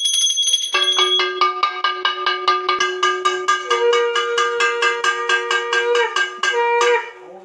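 Brass puja hand bell rung rapidly and evenly, about seven or eight strokes a second. From about a second in, a conch shell is blown alongside it in a long steady note that steps up in pitch about halfway, breaks briefly, and ends just before the close.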